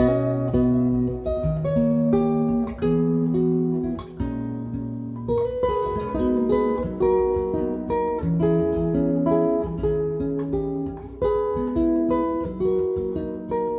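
Acoustic guitar music: plucked melody notes over a low bass line, played at a steady pace without a break.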